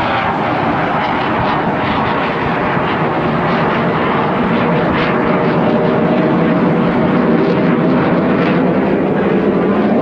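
Aircraft passing overhead, its engines droning steadily and growing a little louder in the second half.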